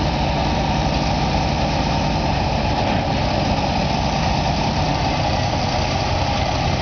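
A large engine running steadily at idle, a constant low rumble with a hum in the mid range.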